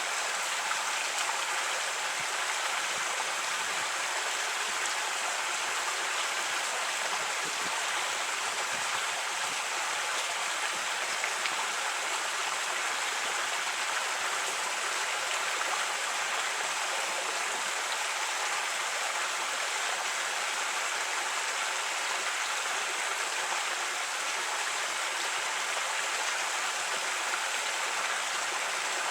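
Creek water flowing over rocks in a steady, unbroken rush.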